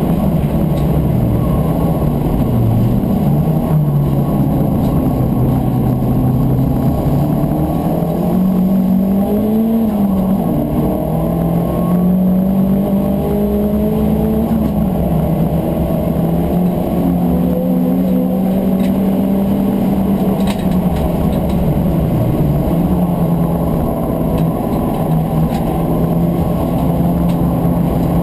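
Turbocharged Volkswagen Corrado race car's engine under hard acceleration, heard from inside the cabin. The pitch rises and drops several times in the first half with gear changes and lifts for corners, then holds high and fairly steady.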